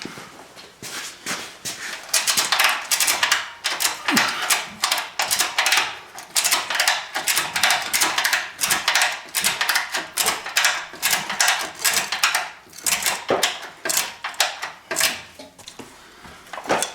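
Ratchet strap being cranked tight: a long run of sharp metallic clicks from the strap's ratchet handle, starting about two seconds in, as it draws an independent front suspension piece up into place under load.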